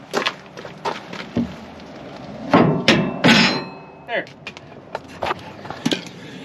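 Metal-on-metal knocks and bangs as a fifth-wheel prep kit mount is struck to pop it into place in the truck frame: a string of irregular hits, the loudest pair about two and a half to three and a half seconds in, one with a brief metallic ring.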